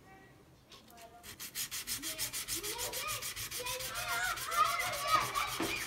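Double-bevel carving knife blade rubbed in rapid, even strokes across wet sandpaper, a rasping scrape that starts about a second in and grows louder.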